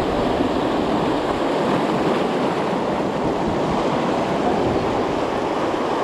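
Surf washing over a rocky shore shelf: a steady rush of breaking water with no distinct splashes.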